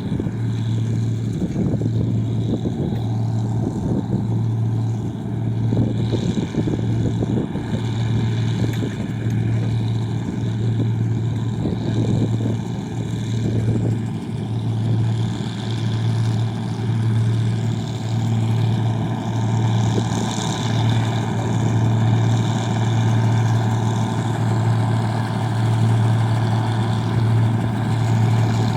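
Engine-driven rice-processing machine running steadily: a strong low hum with a slight regular pulsing, under a continuous mechanical rattle.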